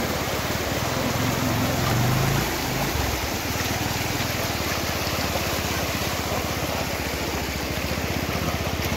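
Motorcycle engine running at low speed as the bike is ridden through a shallow stony stream, revving up briefly about a second in, over the rush of stream water.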